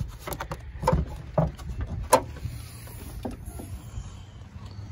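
Car hood being released and lifted open: a series of metallic clicks and clunks from the latch and hood, the loudest about two seconds in, over a low steady rumble.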